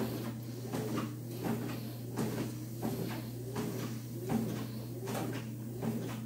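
Motorized treadmill running with a steady low hum, under a steady rhythm of footfalls on the belt and deck. A whine rises and falls in pitch with each stride.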